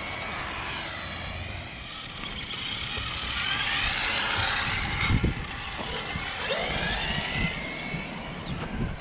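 Electric 1/10-scale RC cars running on asphalt, their motors whining high and rising and falling in pitch several times as they speed up, slow and pass, over a steady hiss of tyres.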